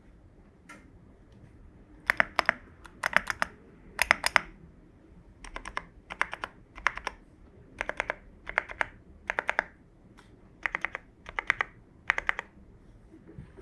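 Typing on an Owlab QK65 mechanical keyboard with lubed, filmed Alpaca v2 linear switches on TX springs, a polycarbonate plate, full foam and XMI keycaps. A few light key presses come first, then from about two seconds in the typing runs in quick bursts of several keystrokes each, with short gaps between them.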